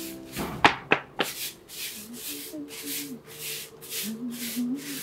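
Steady swishing strokes, about three a second, over soft background music with a simple melody. About half a second to a second in, three sharp, loud swooshes fall in pitch.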